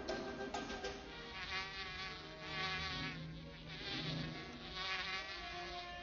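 A bee buzzing in flight, its pitch wavering up and down and its loudness swelling and fading as it circles close.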